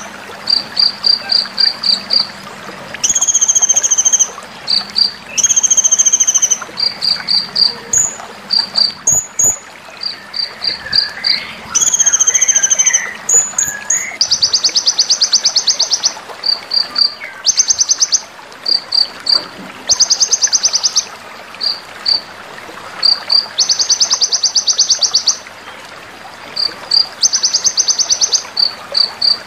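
Sunbird song (the 'konin', kolibri ninja) as used in a bird-training masteran track: high clear whistles about a second long alternate with quick runs of short sharp chips. After about fourteen seconds these give way to fast buzzy trills, still broken up by chip runs.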